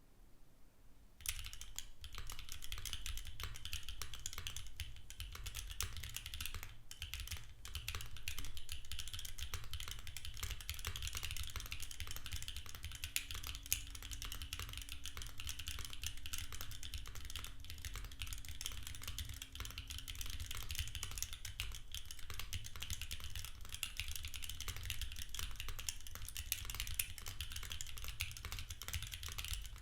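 Continuous fast typing on a Vertex Arc60 HHKB-layout mechanical keyboard with an aluminium plate and no foam, fitted with lubed Gateron Luciola linear switches and GMK Monarch keycaps. It starts about a second in. The keystrokes are loud, as the aluminium plate makes these switches.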